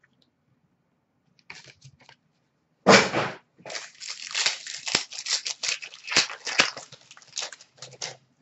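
Trading-card pack wrapper being handled: a sharp rip about three seconds in, then a rapid run of crinkling and rustling of wrapper and cards until near the end.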